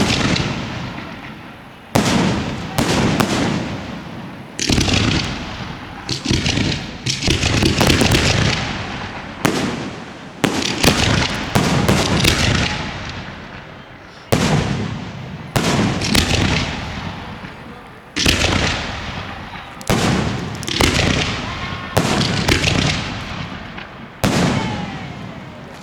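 Aerial fireworks shells bursting one after another, a loud bang every one to two seconds and sometimes two in quick succession, each trailing off in a fading tail.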